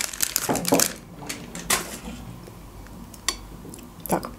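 Crinkly plastic ice cream wrapper rustling as the ice cream bar is pulled out, stopping about a second in. A few light, sharp ticks and taps follow.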